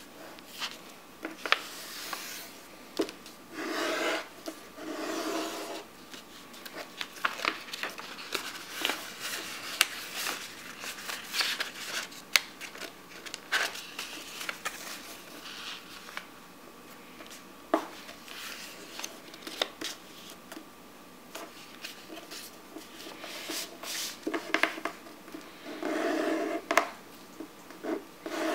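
A sheet of paper being folded by hand on a hard tabletop: rustling and rubbing as the folds are smoothed and creased, with many short sharp ticks. There are longer stretches of rustling about four seconds in and near the end.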